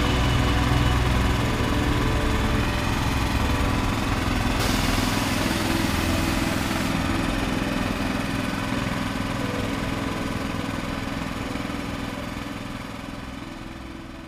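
Engine of the truck-mounted crane running steadily, its pitch shifting slightly now and then. A burst of hiss lasts about two seconds, starting about five seconds in. The sound fades out over the last few seconds.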